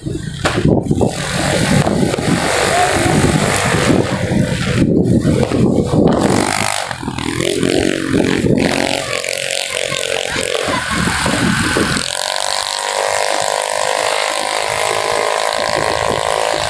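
Motorbike engines running on the move among a group of motorcycles, with a heavy low rumble of wind on the microphone. About two-thirds of the way through, the rumble drops away and a steady, even engine hum is left.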